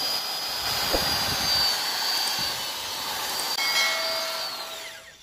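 Electric hand drill with a twist bit boring into a wooden plank: a steady high motor whine over the hiss of the bit cutting wood, winding down near the end.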